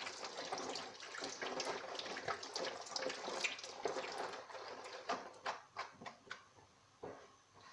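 Tap water running into a sink as hands are washed, splashing. The flow stops about four and a half seconds in, leaving a few scattered splashes and drips.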